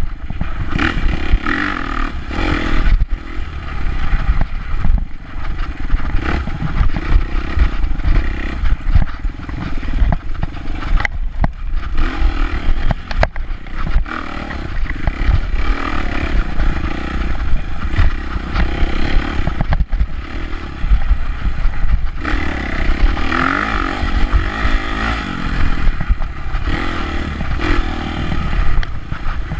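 Off-road dirt bike engine ridden hard on a rough dirt trail, revving up and down as the throttle opens and closes, with the bike's chassis clattering over the bumps, heard from on board the bike.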